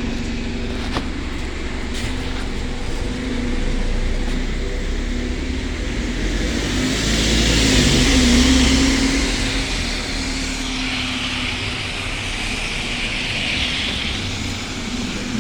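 Diesel engine of a London bus running with a steady drone, joined in the middle by a swelling hissy rush that is loudest about halfway through. The hiss fits the burst exhaust and turbo the bus is known for.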